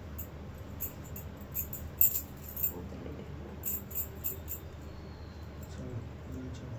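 Glass bangles clinking in short, irregular chinks as the wearer's hands move, the loudest about two seconds in, over a low steady background hum.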